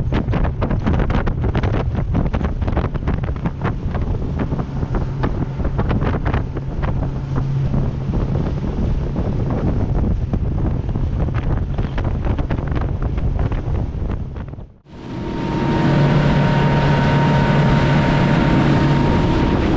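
Small motorboat running at speed: a steady engine hum under wind buffeting the microphone and spray slapping against the hull. About fifteen seconds in, the sound cuts abruptly to a steadier engine drone with less wind.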